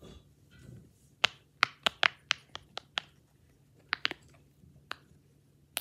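Silicone pop-it fidget toy being popped: a quick run of about nine sharp pops, then a few more spaced out.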